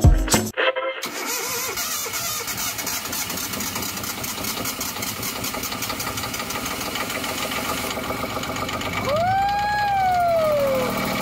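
Inboard marine diesel engine in a sailboat's engine bay idling steadily with an even clatter. Near the end a single clear tone rises and then slowly falls.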